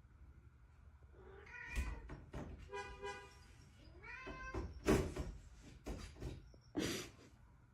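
Domestic cat meowing several times, one call longer than the rest, with two short, sharp noisy sounds about five and seven seconds in.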